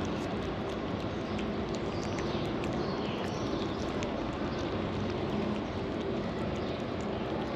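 Steady outdoor street background, a constant hum and hiss, with scattered faint clicks and a couple of faint high chirps around the middle.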